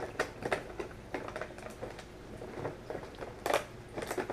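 Small irregular plastic clicks and crinkles from handling packaging as a twist tie is undone from a pack of spare quadcopter propellers, with a louder clatter about three and a half seconds in.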